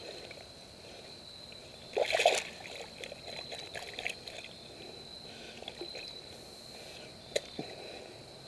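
Water splashing and sloshing as a big hooked bass is brought in at the surface, with one louder splash about two seconds in, over a steady high-pitched whine.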